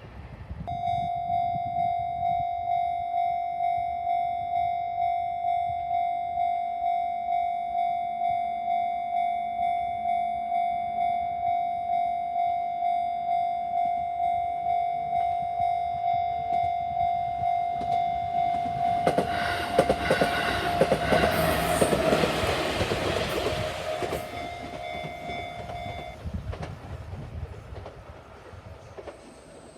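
A Japanese level-crossing warning bell rings in steady, even strokes, about three every two seconds. About 19 s in, a train passes for about five seconds with wheel clatter. The bell stops soon after the train has gone.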